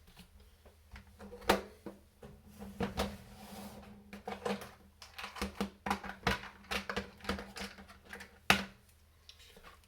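Small metal kit parts and hand tools handled on a workbench: an irregular run of light clicks, taps and rattles, with two sharper knocks, about one and a half seconds in and near the end, as steering rod ends and nuts are fitted and adjusted.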